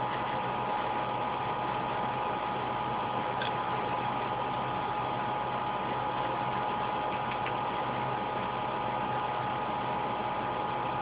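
Steady hiss with a constant low hum and a steady mid-pitched tone, unchanging throughout; one faint tick about three and a half seconds in.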